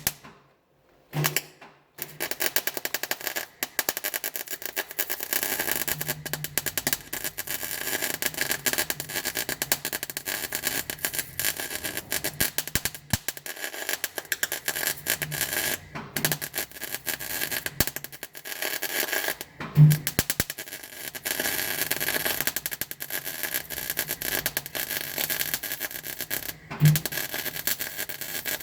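Arc welding on a car chassis: a steady, fast crackle from the welding arc, running in several long welds broken by short pauses.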